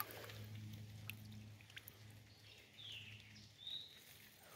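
Faint creek-side ambience: shallow water running over rocks, with a few light ticks and a steady low hum that fades out after about three and a half seconds. Two short high bird chirps sound near the end, the first falling in pitch.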